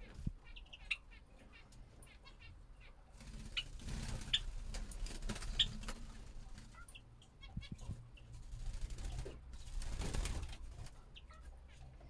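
European greenfinches giving short, high chirping calls scattered through, with two longer stretches of rustling noise, one around the middle and one near the end.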